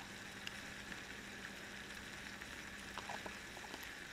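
Sausages sizzling faintly on a griddle plate heated by an alcohol burner, with a few small crackles about three seconds in.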